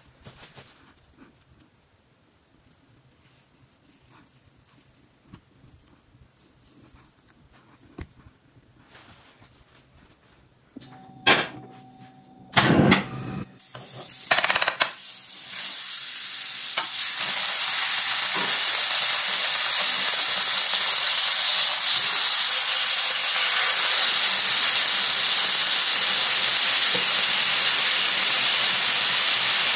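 Butter and then a chicken breast sizzling in a frying pan, a steady hiss that builds from about halfway through and stays loud to the end. Before it there is only quiet room tone with a faint high whine, then a few sharp knocks just before the sizzle starts.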